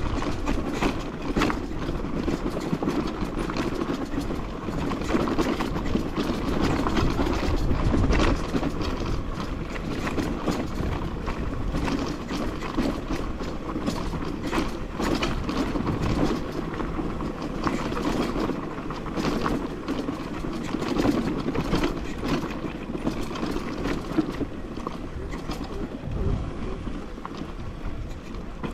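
Crossfire HJ250 dirt bike engine running as it rides over a loose rocky track, with continual clattering and knocking from the tyres and chassis over the stones.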